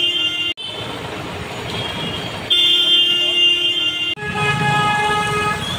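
Vehicle horns honking over steady street traffic noise. One horn blast is cut off sharply about half a second in. A second long blast comes around the middle, and a horn of a different pitch sounds near the end.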